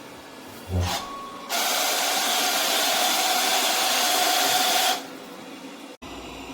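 A vacuum motor starts with a click, then runs as a loud steady rush of air with a held hum, cutting off abruptly after about three and a half seconds.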